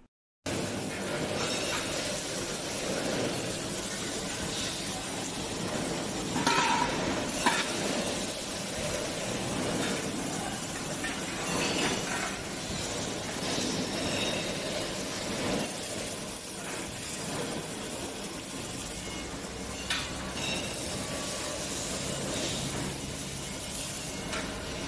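Steel being arc-welded with wire-feed welders: a steady crackling hiss, with a few sharp metal knocks. A low hum comes in near the end.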